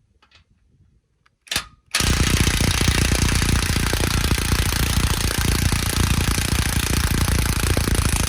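Cordless brushless impact wrench hammering as it backs out one of the transmission crossmember bolts: a brief blip about a second and a half in, then rapid, continuous hammering for about six seconds.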